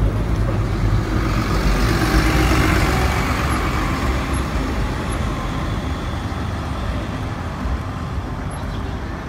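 Hybrid-electric city transit bus pulling away and driving off. Its engine rumble and road noise are loudest a couple of seconds in, then fade steadily as it moves away.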